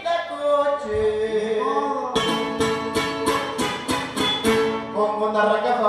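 Latin dance music with a plucked-string melody and singing. About two seconds in, a run of sharp rhythmic strokes, about four a second, takes over.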